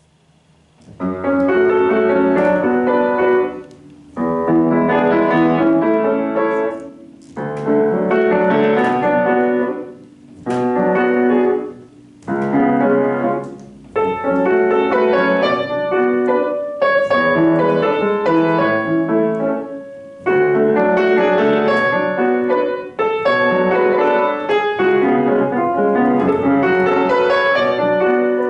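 Solo piano playing a classical piece, starting about a second in, in phrases of a few seconds that each fade before the next begins.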